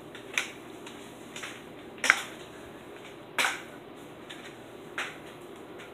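A handful of separate sharp knocks and clicks, five in all and unevenly spaced, the loudest about two seconds in.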